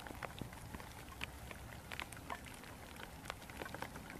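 Pouring rain: a steady hiss with scattered, irregular drops ticking sharply on nearby surfaces.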